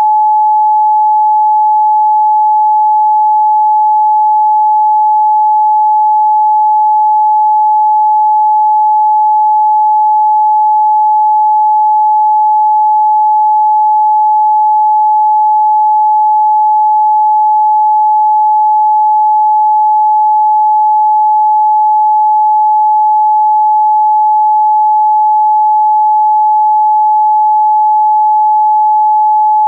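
A steady, loud pure sine-wave test tone at 855 Hz: one unwavering pitch with no overtones.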